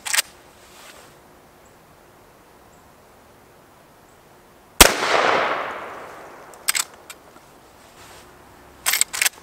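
A single shot from a Henry Lever Action Axe .410, a short-barrelled lever-action, about five seconds in, with a long fading echo afterwards. Sharp clicks of the lever being worked come near the start, about two seconds after the shot, and again near the end.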